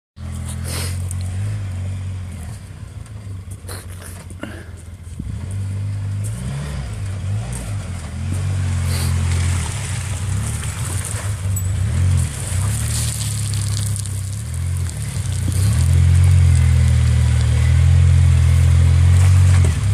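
Polaris Ranger side-by-side's engine running and revving up and down as it crawls through mud and water toward a rock ledge, louder over the last few seconds as it comes up to the ledge.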